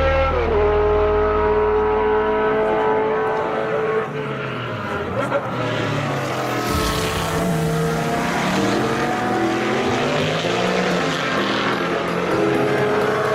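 A car engine running, its pitch dropping about half a second in, then rising and falling repeatedly as it is revved.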